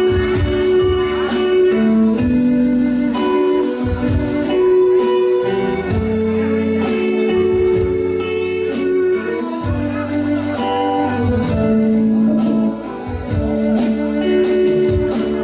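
Live band playing an instrumental passage with no singing: guitar melody over held notes and a steady drum beat.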